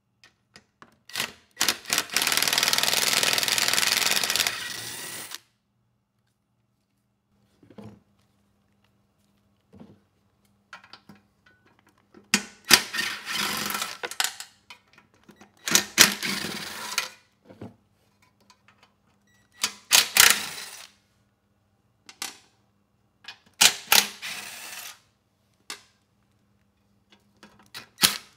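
Cordless impact driver running in five short bursts, the first about four seconds long and the rest a second or two each, as it backs out the bolts holding the mower engine's shroud, with small clicks between bursts.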